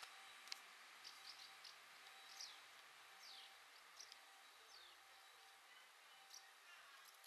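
Faint birdsong over a quiet hiss: scattered short, high chirps that slide downward in pitch, spaced about a second apart.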